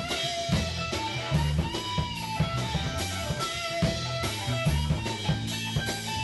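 Band music with guitar and drums playing a steady beat.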